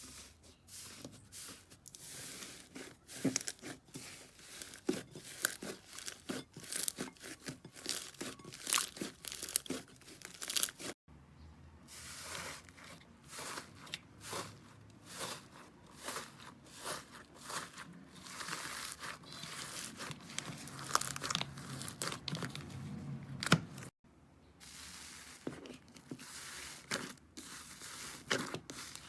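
Slime being squeezed, stretched and poked by hand, giving dense runs of sticky crackles, pops and clicks. The sound cuts off abruptly twice, about 11 and 24 seconds in, where one clip gives way to the next.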